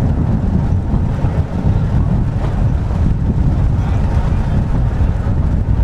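Victorian electric mountain tramcar running along its track with a steady low rumble, mixed with gusty wind buffeting the microphone.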